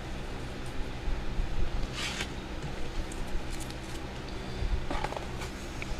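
Trading cards being handled and sorted on a table: a short rustle about two seconds in and a few light clicks and rustles near the end, over a steady low hum.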